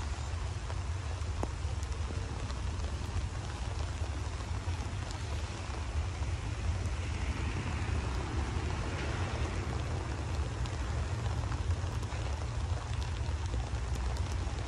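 Container freight train rolling past: a steady rushing noise of wagons running over the rails, over a strong low rumble, swelling slightly in the middle.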